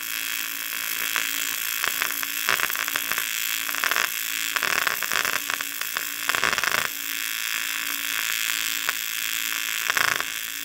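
TIG welding arc hissing and crackling steadily as silicon bronze filler rod is fed onto an old cast iron motorcycle cylinder head, with a faint steady hum under it.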